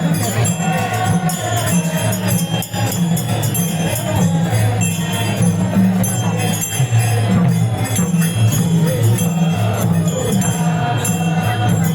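Traditional Newar festival music: small cymbals and bells ringing rapidly over a steady drum beat, with a pitched melody above.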